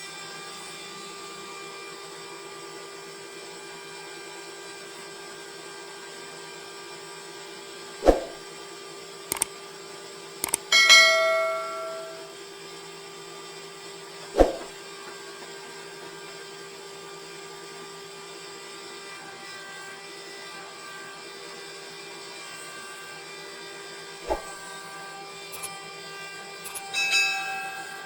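Sawmill machinery running with a steady hum, broken by several sharp metallic clanks that ring on like struck steel, the loudest and longest about eleven seconds in.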